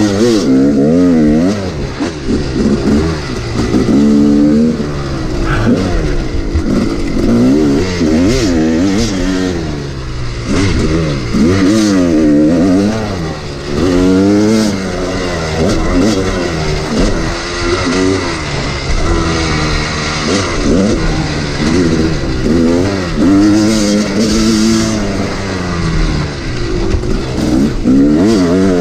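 Two-stroke Yamaha YZ250 dirt bike engine ridden hard, its pitch climbing and dropping every second or two as the throttle is opened and shut through the gears.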